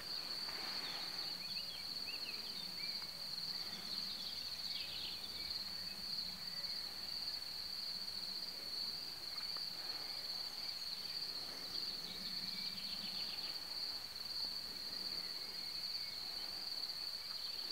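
Crickets trilling steadily in a high, unbroken tone, with a few short bird chirps now and then.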